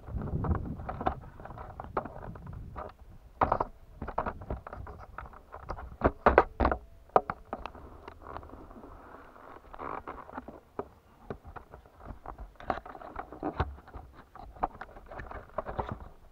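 Irregular knocks and rattles over a low rumble as a motorcycle and its mounted camera jolt over a rough gravel track; the sharpest knocks come about three and a half seconds in and again around six to seven seconds in.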